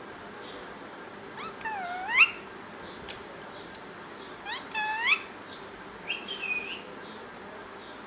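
Indian ringneck parakeet giving three short, high-pitched calls a few seconds apart, each gliding down in pitch and then sharply up.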